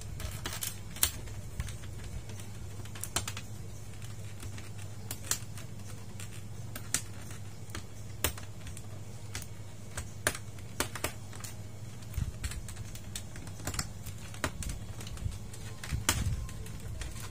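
Irregular sharp clicks and taps of a small metal tool working at the plastic reflector sheet and metal backplate of an LED TV panel during backlight disassembly, over a low steady hum. A few duller knocks come near the end.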